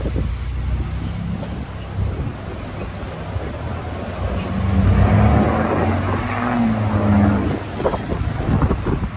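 City street traffic, with a heavy engine passing loudest from about five seconds in to near the end.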